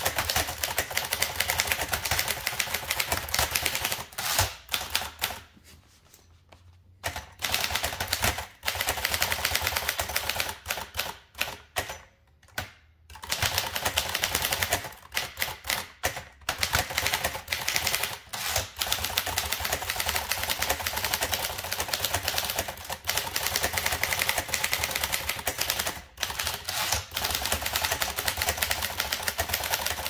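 1936 Dankers typewriter being typed on at a fast pace, a dense run of key and typebar strikes clattering on the platen, with two short pauses about five and twelve seconds in.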